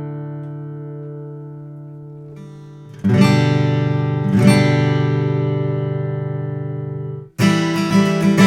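Martin CS-OM-13 acoustic guitar (Swiss spruce top, Madagascar rosewood back and sides) being played. A chord rings out and fades for a couple of seconds. Two fresh strummed chords follow and are left to ring until they are muted abruptly near the end, and rhythmic strumming starts right after.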